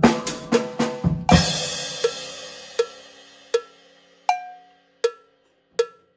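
Drum kit playing a fast triplet lick on snare, toms and bass drum, ending about a second in on a cymbal and bass drum hit that rings out and fades. Then single short clicks at an even pace, a little more than one a second, like a metronome.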